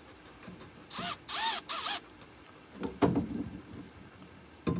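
Cordless drill run in three short trigger pulses about a second in, the motor whirring up and winding down each time, with its bit in a wine bottle's cork. A sharp knock follows about three seconds in.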